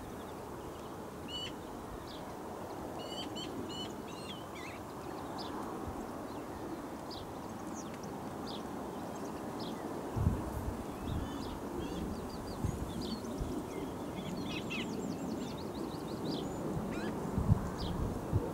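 Wild birds calling and singing in many short chirps and quick note strings over a steady outdoor hiss, with a few low thumps in the second half.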